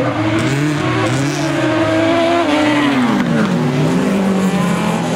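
Autocross racing car engines revving hard on a dirt track, the pitch rising and falling about once a second as the drivers work the throttle, then settling to a steadier note near the end.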